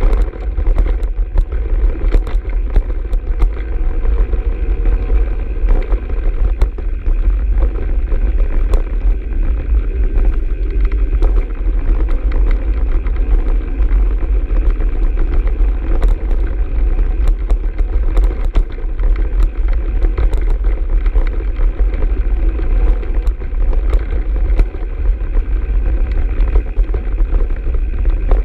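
Mountain bike riding fast down a rough dirt trail: wind rumbling on the handlebar camera's microphone over tyre noise, with frequent small clicks and rattles from the bike over the bumps.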